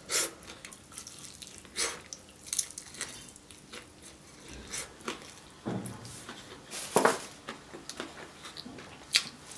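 Close-miked eating of sauce-coated Korean fried chicken: biting and chewing the still-crunchy coating, with wet smacking mouth sounds. The sounds come as irregular short, sharp crackles, the loudest about seven seconds in.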